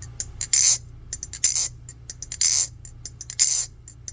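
Aluminium LDY Kite balisong being flipped: a run of sharp metallic clicks as the handles strike the blade, with a longer clatter about once a second.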